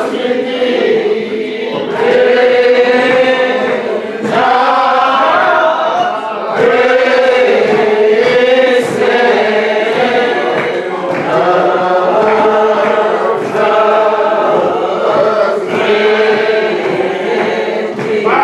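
A group of men singing a slow hymn a cappella, with long held notes in phrases and short breaks between them.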